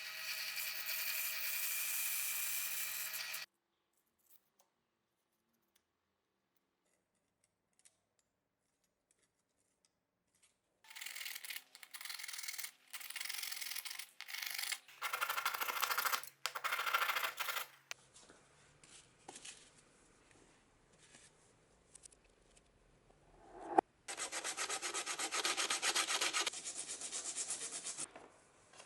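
An abrasive rubbed back and forth by hand on the knife's steel, in several separate spells of scrubbing with short gaps between them. A small motor runs steadily for the first few seconds, and there is a single sharp knock shortly before the last spell of rubbing.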